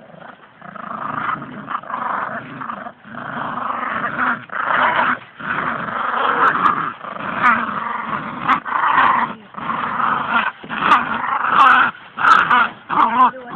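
Puppies play-growling while tugging on a strap, in long rough growls of a second or two broken by short pauses.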